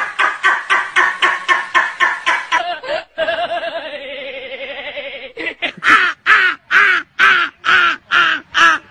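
Quick rhythmic voice bursts, about four a second, give way to a long wavering held voice note, then loud bursts of laughter, about two or three a second, near the end.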